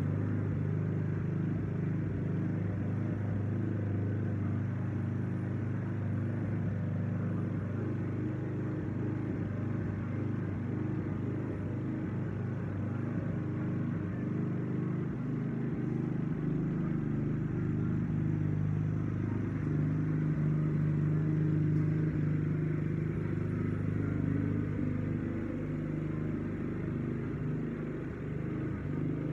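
Gas walk-behind lawn mower's small engine running steadily under load, a little louder about two-thirds of the way through.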